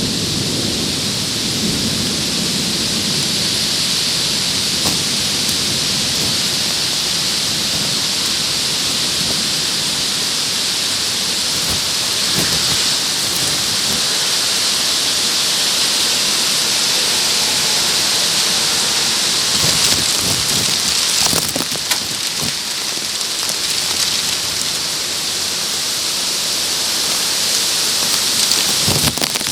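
Torrential rain pouring down in a steady dense hiss, with drops pattering on the plastic bag covering the camera. Low thunder rumbles in the first few seconds and dies away.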